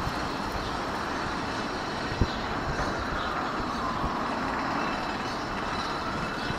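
R68 subway train rolling slowly out of the tunnel over curved track and switches. The cars rumble steadily under a long wheel squeal that dips in pitch and rises again, with one sharp click about two seconds in.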